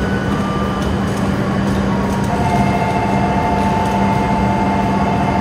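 Steady hum and air-conditioning noise from an E5-series shinkansen standing at the platform. About two seconds in, a pair of steady, slightly warbling tones comes in over the hum.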